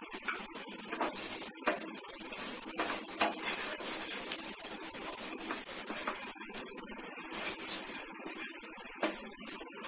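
Wooden spatula scraping and knocking in a nonstick frying pan as chopped vegetables are stirred and sautéed: irregular short scrapes and taps over a steady high hiss.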